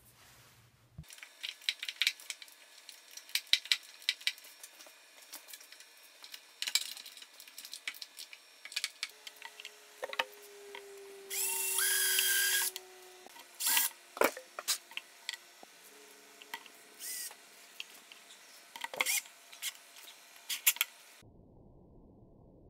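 Woodworking shop sounds: scattered sharp clicks and knocks of tools and wood being handled, with a power tool running for about a second and a half about halfway through.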